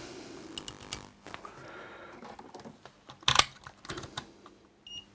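Light clicks and rustles of a circuit board and multimeter test leads being handled on a silicone work mat, with a louder knock about three seconds in. Near the end the rotary dial of a Fluke digital multimeter is clicked round and the meter gives one short high beep as it switches on.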